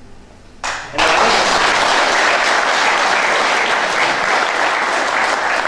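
Audience applauding. The applause breaks out about a second in and holds steady.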